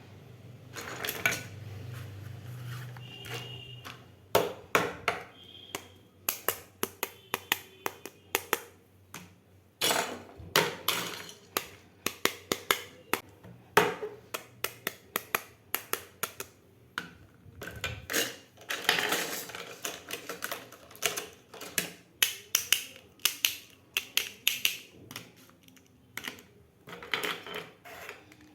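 Miniature plastic toy kitchen pieces being handled and set down: a run of irregular light clicks and taps, with a few short stretches of rustling.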